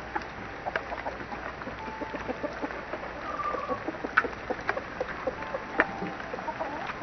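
Backyard chickens: a patter of small clicks and ticks with a few short, high calls, one drawn-out call about three and a half seconds in.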